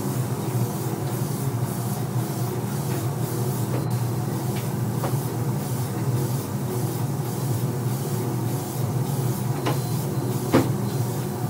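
Steady hum of shop machinery with the hiss of a compressed-air hose blowing over a car's bumper, heard at double speed. A few light clicks, the sharpest about ten seconds in.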